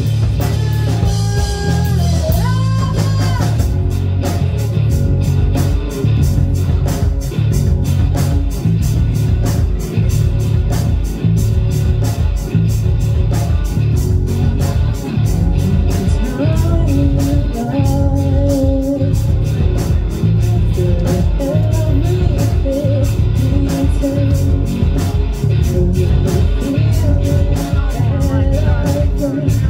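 Live rock band playing: electric guitar, bass guitar and drum kit, the drums settling into a steady beat about four seconds in. A singer's voice comes in over the band about halfway through and carries on to the end.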